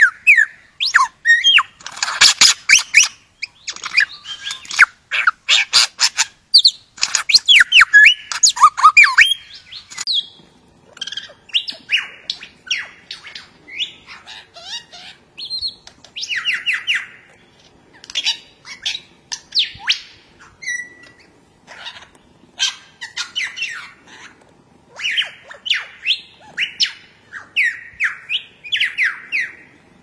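Superb lyrebird singing a varied song of quick whistled notes, sharp clicks and squawks, densest and loudest in the first ten seconds, then in sparser phrases.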